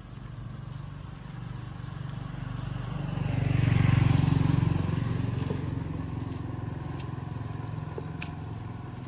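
A motor vehicle's engine passing nearby: a low hum that builds to its loudest about four seconds in, then fades away.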